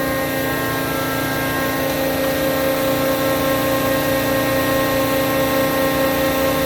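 Hydraulic test bench driving an Uchida Rexroth AP2D25 piston pump, running steadily with an even whine made of several steady tones. The pump is delivering oil through its B loop at about 10 gallons a minute.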